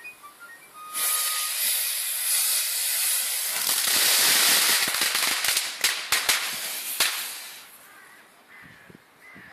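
Model rocket motor igniting and burning on its launch rod without lifting off: a loud hiss starting about a second in and lasting some six seconds, with sharp crackles near its end before it dies away.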